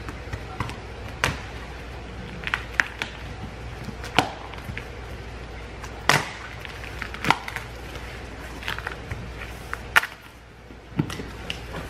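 A cardboard shipping box being opened by hand: irregular sharp cracks, rips and scrapes as the top flaps are pulled loose and folded back.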